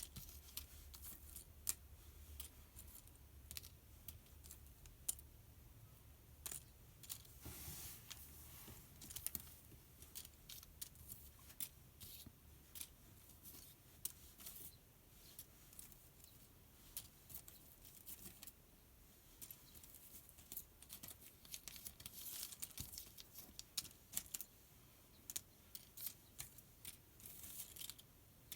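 Metal paper clips clicking and clinking as they are picked up and sorted by hand on gift wrap paper, with light paper rustling. The small sharp clicks come irregularly, with a denser rustling burst about a third of the way in and quicker clicks near the end.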